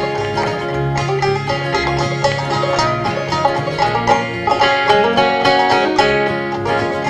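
Banjo and two acoustic guitars playing an instrumental break of a western ballad in a steady country rhythm, the banjo picking a quick run of notes over the guitars.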